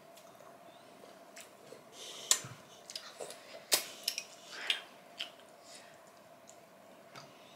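Metal spoon clinking and scraping against a ceramic bowl and plate while eating, a handful of sharp clinks between about two and five seconds in.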